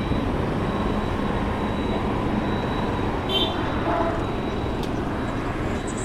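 Steady outdoor street noise: a continuous low rumble of traffic, with a brief high chirp about halfway through.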